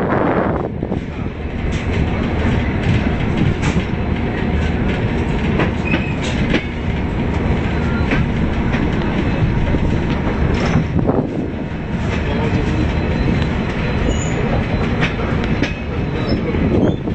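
Moving Rajdhani Express passenger train heard from an open coach door: a steady rumble of wheels on rail, with a clickety-clack of wheels over rail joints and a few brief high wheel squeals as the train takes a curve.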